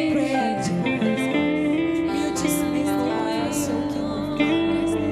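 Worship band music with guitar, its chords and notes held.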